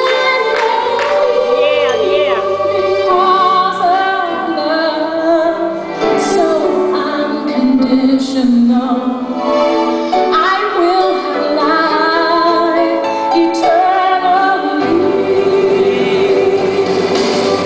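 Recorded gospel song playing: a woman's lead voice singing with vibrato over instrumental backing, with choir voices joining.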